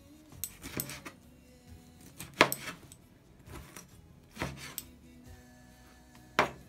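Kitchen knife cutting lemon pieces and knocking against a cutting board: about six sharp knocks a second or two apart, the loudest a little over two seconds in.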